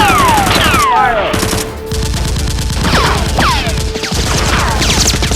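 Rapid automatic gunfire sound effects, laid over a Nerf-blaster fight scene. Several falling whistling tones cut across the shots, like bullets whizzing past.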